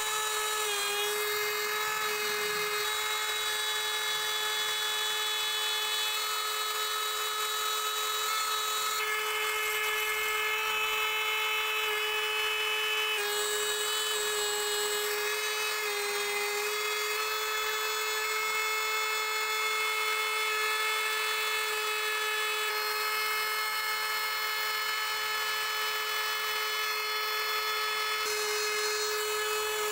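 CNC engraving spindle with a 1.5 mm four-flute carbide end mill cutting lettering into an aluminium plate: a steady high-pitched whine over a hiss, dipping briefly in pitch a couple of times.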